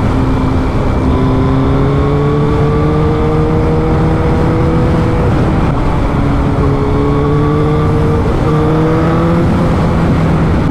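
Suzuki GSX-R1000's inline-four engine pulling at highway speed, its note rising slowly, dropping away about halfway through, then picking up and climbing again. Heavy wind rush on the microphone runs under it.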